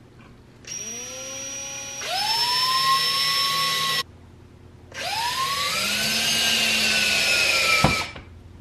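Cordless drill driving screws through a caster's mounting plate into a pine board. The motor runs twice, each time with a whine that climbs in pitch as it spins up, and the second run ends in a sharp knock near the end.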